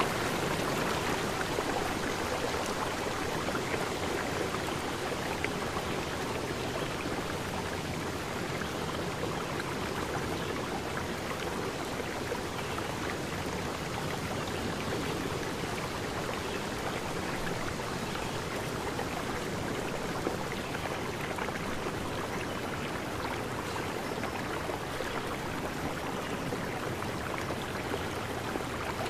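Steady, even rushing noise of flowing water, unbroken throughout.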